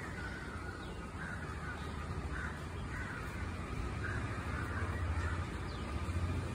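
Crows cawing again and again, a string of short harsh calls, over a low steady rumble.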